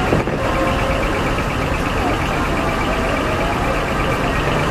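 Heavy truck engines idling steadily, with a busy din of other sounds over them.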